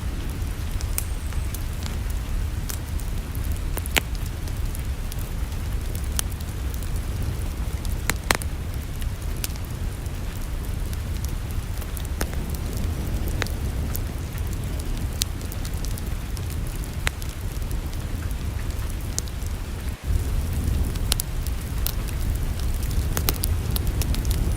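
Wood fire in a fireplace crackling, with irregular sharp pops scattered over a steady low rumble.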